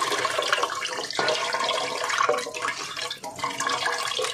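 Wet squelching and sloshing of a hand kneading and squeezing water-soaked grated coconut in a metal pot, pressing out the coconut milk. The sound is irregular, with small splashes and clicks.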